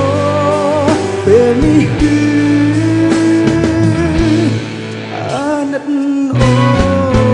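A male vocalist singing live into a microphone over a full band with drums and guitar. The band thins out for about a second near the end, leaving mostly the voice, then comes back in full.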